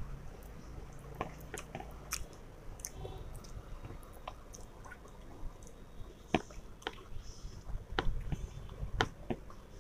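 Close-up eating sounds of a person eating rice by hand: chewing and wet mouth smacks, with irregular sharp clicks that grow louder and more frequent in the second half.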